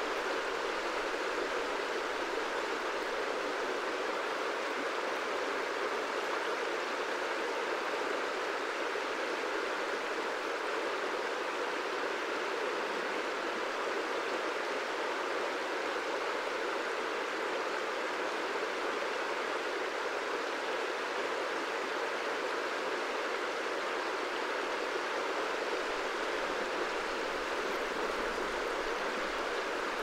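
River water flowing: a steady, even rush with no breaks or individual splashes.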